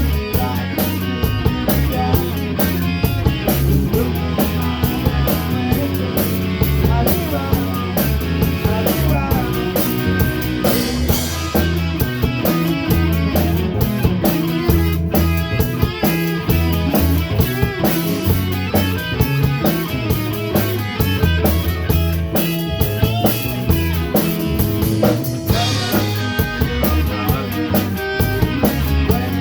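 Rock music played on a drum kit and guitars, with a steady beat.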